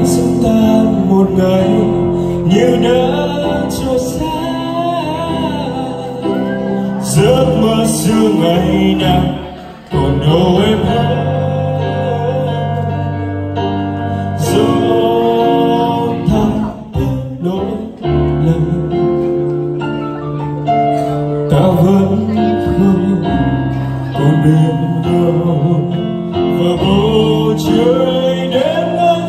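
A man singing a song live into a microphone over instrumental accompaniment, amplified through a PA. The voice slides and holds long notes.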